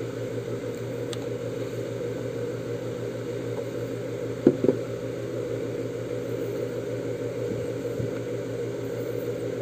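Steady low machine whir of a small motor running, with two sharp clicks close together about halfway through.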